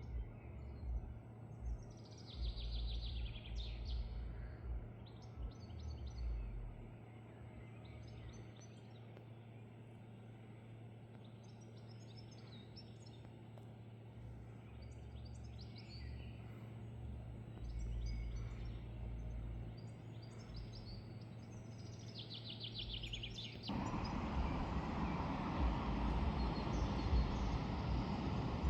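Small birds chirping and trilling in short bursts, with low gusts of wind rumbling on the microphone. About 24 seconds in, a louder, steady rushing noise starts abruptly and covers the birds.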